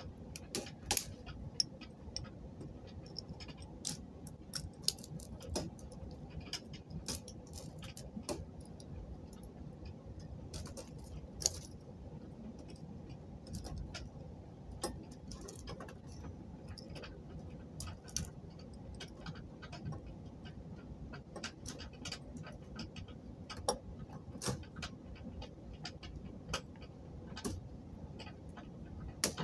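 Irregular light clicks and taps, often several a second and unevenly spaced, from small hard bracelet-making pieces being handled and broken, over faint low handling rumble.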